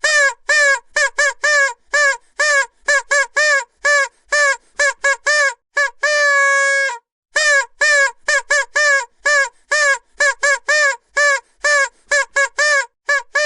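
Vuvuzela blown in a rapid run of short blasts, about two to three a second, each note bending slightly in pitch, with one longer held blast about six seconds in.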